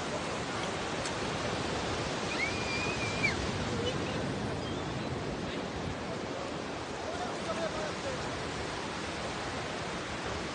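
Surf of the Bay of Bengal breaking and washing up the sand, a steady rushing noise. Faint voices of people on the beach come through it now and then, with a brief high call about two and a half seconds in.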